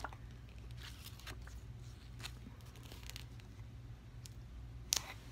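Soft rustling and crinkling of an adhesive stencil transfer as it is handled, laid on a board and pressed down by hand: scattered faint crackles, a sharper one near the end, over a low steady hum.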